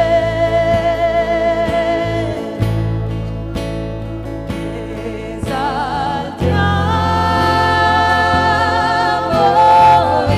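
Christian worship music: a voice holding long notes with vibrato over sustained bass and a steady beat, the chord changing twice.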